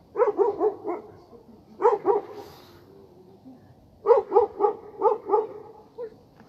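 Stray street dogs barking in three quick runs. There are four or five barks, then two, then five more, with a single bark near the end.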